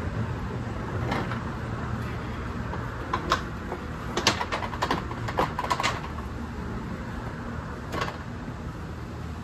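Wooden 2x4 cart frame being handled: a run of sharp knocks and taps about three to six seconds in and one more near the end, over a steady low hum.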